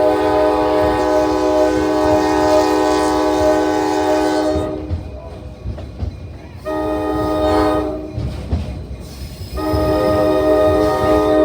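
Locomotive air horn heard from the passenger train. There is a long blast, a short blast about seven seconds in, then another long blast starting near ten seconds, the pattern of a grade-crossing signal. Under it runs the steady rumble of the cars on the rails.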